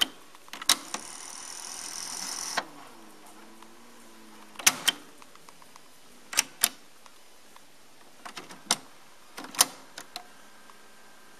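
Piano-key transport buttons of a Fisher CD-4020 cassette deck clicking as they are pressed and released, mostly in quick pairs. About a second in there is a whir, growing louder for under two seconds and then cut off, as the tape winds fast.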